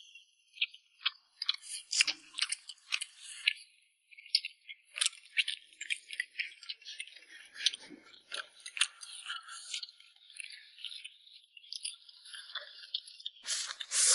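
People chewing food at a meal, with many irregular sharp clicks and short scrapes, and a louder scraping rustle near the end.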